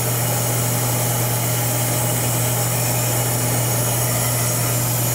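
Steady hum of running machinery: a constant low tone with an even hiss over it.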